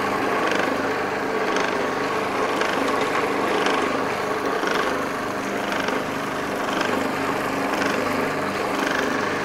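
Magimix Patissier food processor motor running steadily with its mini bowl blade spinning, emulsifying egg yolk, mustard and oil into mayonnaise, with a faint regular pulse about once a second.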